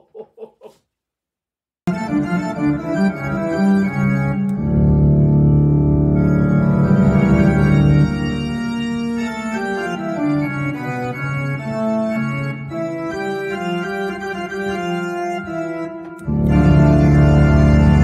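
Organ playing a slow piece in sustained, held chords, starting about two seconds in. Near the end it swells to a louder, fuller chord.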